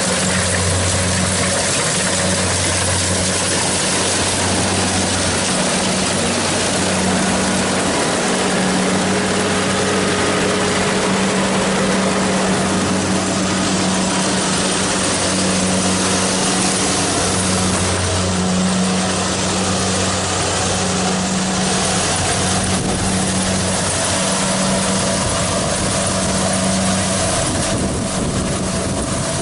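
Kubota DC70 Plus rice combine harvester running steadily: a loud, even diesel engine and machinery drone, with a low hum that swells and fades every few seconds.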